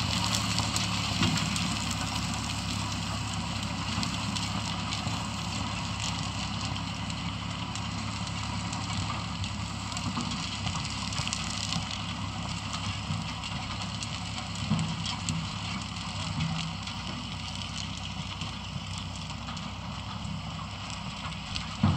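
Diesel engine of sugar beet harvest machinery running steadily, a low hum that grows fainter after about twelve seconds.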